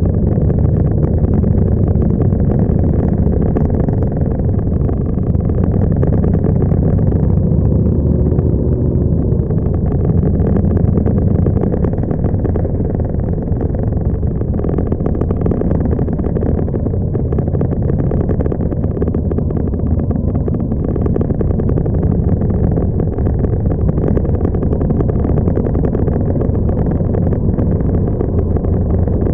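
Motorcycle engine running steadily at low road speed, heard from on the moving bike: a continuous low rumble with little change in level.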